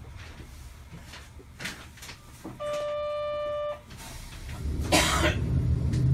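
Inside a Sapporo streetcar, a steady electronic buzzer sounds for about a second. A loud burst of air hiss follows about two seconds in, while a low rumble rises as the tram's motors pull away.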